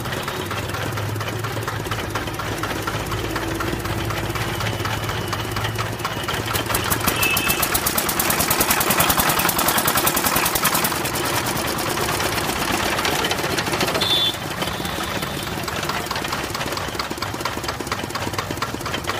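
Diesel engine driving a sugarcane crusher, running steadily with a rapid knocking beat. It grows louder and harsher in the middle as cane is fed through the rollers, then eases back about two-thirds of the way through.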